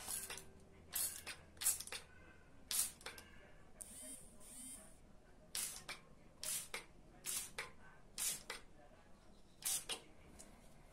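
Handheld plastic trigger spray bottle spraying a cloth face mask: about a dozen short hissing squirts, many in quick pairs, one trigger pull after another.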